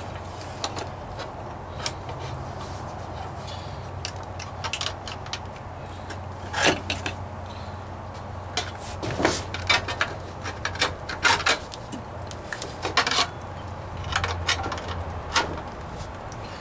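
Scattered, irregular metal clinks, knocks and scrapes, a few ringing briefly, as the sheet-metal floor pan patch and hammering tools are handled and tapped at a vise. A steady low hum runs underneath.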